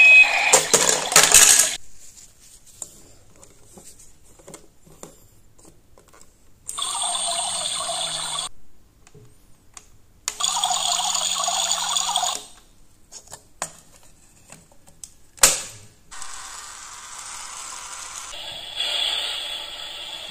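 Small battery motors in toy kitchen appliances running in short spells. A toy blender whirs briefly, then a toy coffee maker's pump runs twice for about two seconds each as it moves liquid. Small plastic clicks and button presses fall between the runs, with one sharper click about three quarters of the way through.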